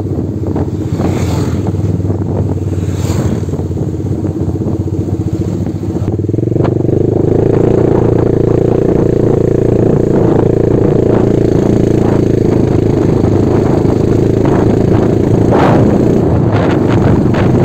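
Motorcycle running at road speed, heard from on board, its engine noise growing louder about six seconds in.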